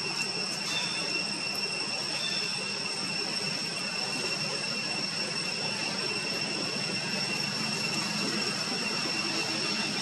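Steady outdoor drone: a continuous high-pitched whine over an even hiss, unchanging throughout.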